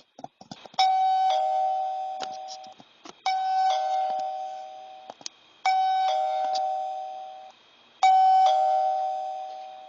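Two-tone doorbell chime sounding 'ding-dong' four times, about two and a half seconds apart, each fading out: the doorbell button being pressed over and over.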